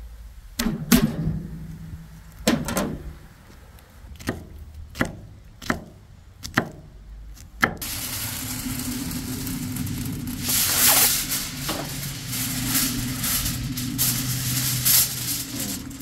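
Knife chopping onion on a wooden cutting board: about seven sharp knocks, irregularly spaced. After about eight seconds it changes abruptly to aluminum foil crinkling and rustling as a large sheet is handled and spread out flat.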